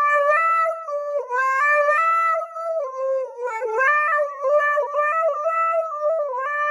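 Husky howling into a karaoke microphone: one long, wavering howl that rises and falls in pitch with a few short dips, stopping suddenly just before the end.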